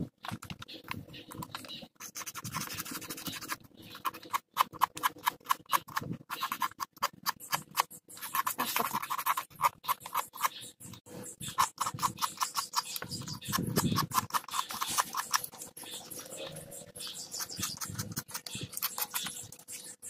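Sandpaper rubbed back and forth by hand along the edge of a car instrument-cluster circuit board: quick scratchy strokes in runs, broken by short pauses.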